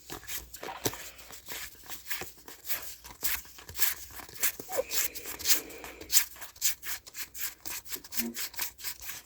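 Pokémon trading cards flipped and slid through the hands one after another: a quick, irregular run of soft rubbing clicks.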